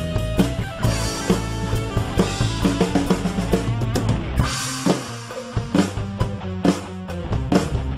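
Ludwig NeuSonic drum kit with Arborea cymbals played in a steady rock groove of kick, snare and cymbals, over a backing track with electric guitar and bass. A cymbal crash comes about four and a half seconds in.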